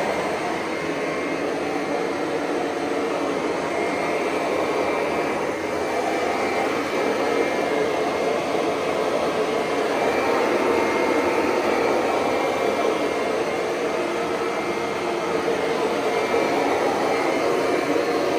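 1999 Kirby G6 upright vacuum cleaner running steadily on carpet, its motor and fan giving a steady rushing sound with a thin high whine on top.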